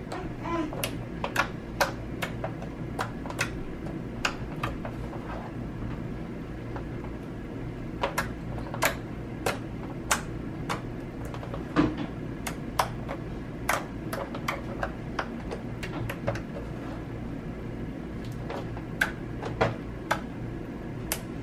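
Runny sky-blue slime clicking and popping in short irregular snaps as fingers poke and squish it against a tabletop, over a steady low hum.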